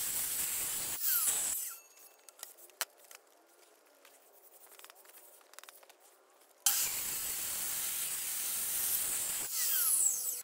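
Electric mitre saw cutting through an old weathered wooden beam. The first cut lasts about a second and a half, then it goes much quieter for several seconds, and a second cut starts about six and a half seconds in and runs about three seconds. Each cut ends in a falling whine.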